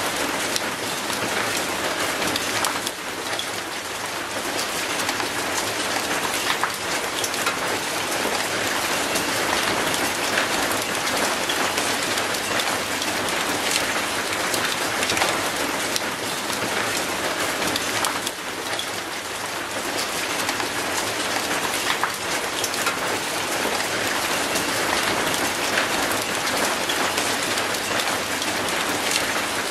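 Steady rain falling on wet concrete and an old rusty metal gate, a dense hiss dotted with many close, sharp drop splashes.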